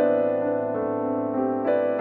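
Background piano music, sustained notes ringing together, with a new chord struck near the end.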